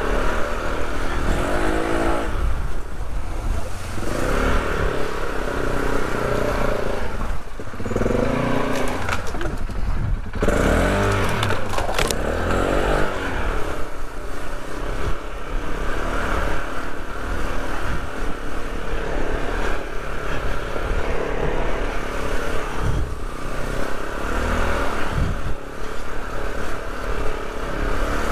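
Polaris off-road vehicle's engine running under load, its revs rising and falling again and again as it is throttled over uneven ground.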